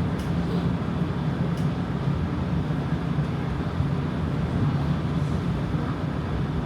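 Toronto streetcar running between stops, heard from inside the car: a steady low hum with the rumble of its wheels on the rails.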